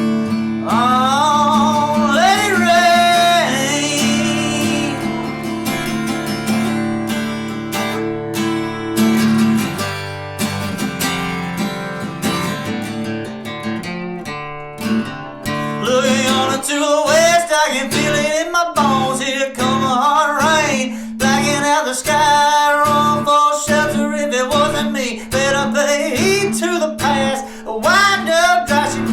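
Acoustic guitar strumming a country-rock song, with a bending melody line over it for a few seconds near the start and again through the second half.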